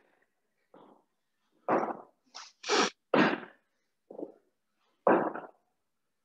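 A man breathing hard, out of breath mid-way through a set of burpees: about half a dozen forceful puffs and gasps, cut off sharply into silence between each one.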